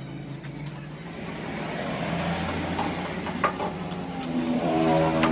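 An engine running and growing louder toward the end, with a single sharp metallic clink about three and a half seconds in, as a steel gear is set into a lathe chuck.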